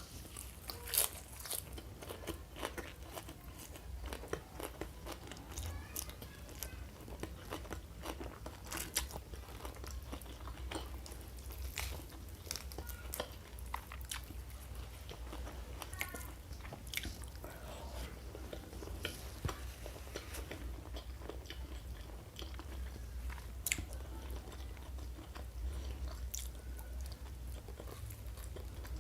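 Close-miked eating: irregular crunching bites and chewing, over a steady low hum.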